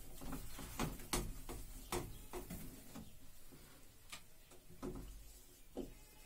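Faint, irregular clicks and taps of a marker working on a whiteboard, several sharp ticks spread a second or so apart.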